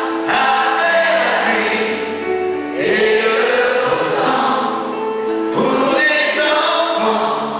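Live performance of a slow ballad: a man sings while playing a grand piano, with many voices singing along.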